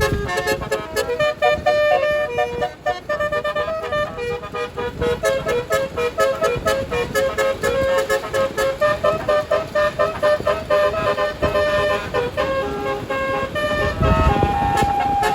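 A tourist bus's telolet basuri horn, a set of many electric horn trumpets, plays a fast tune of short notes that shift in pitch. A low rumble swells near the end.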